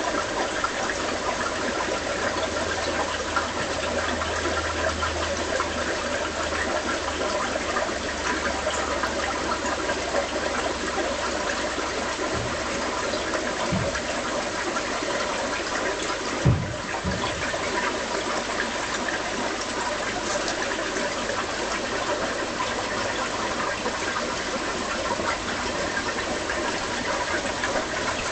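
Aquarium filter running with air bubbling through the water: a steady, even bubbling and rushing noise. A few short low bumps come around the middle.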